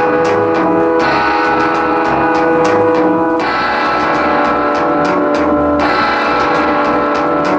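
Rock band playing live: sustained electric guitar chords over bass and drums, the chords changing about every two and a half seconds.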